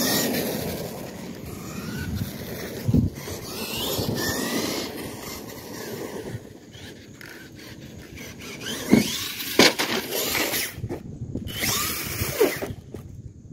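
Electric RC monster truck's motor whining up and down in pitch as it accelerates and slows, over tyre noise on asphalt. Several sharp knocks come as the truck lands and tumbles, the last one near the end.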